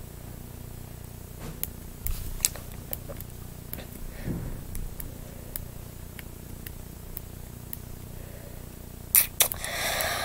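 Quiet small room with a low steady hum and scattered faint clicks and rustles, a brief low murmur about four seconds in, then two sharp clicks followed by a short breath near the end.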